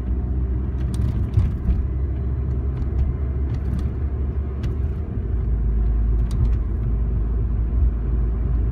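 Car cabin noise while driving at town speed: a steady low road and engine rumble, with a few faint clicks.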